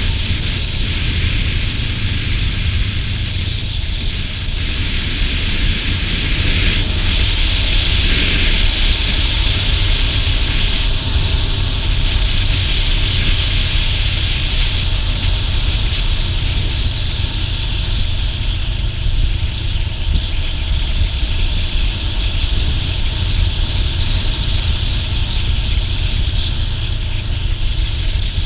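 Steady, loud wind rushing over the microphone of a camera on a moving motorbike at road speed, with the bike's engine and tyre noise running underneath.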